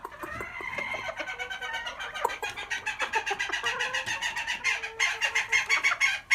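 Brown-red gamecock clucking in a rapid, rhythmic run of about eight to ten clucks a second, growing louder.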